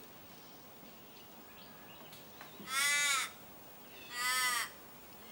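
A crow cawing twice: two loud, drawn-out calls about half a second each, the first a little before the middle and the second about a second and a half later.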